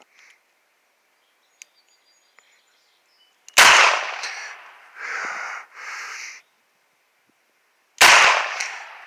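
Two shots from a Ruger LCR .22 Magnum revolver firing CCI Maxi-Mag 40-grain rounds, about four and a half seconds apart. Each sharp report trails off over about a second and is followed by two short noisy swells.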